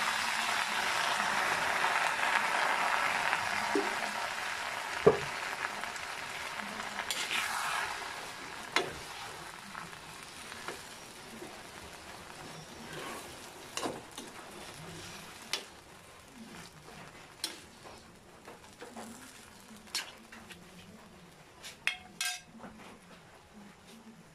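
Water sizzling as it hits a hot wok of kangkong (water spinach), loud at first and dying down over several seconds. Then a metal ladle stirs the greens, with sharp knocks against the wok every second or two.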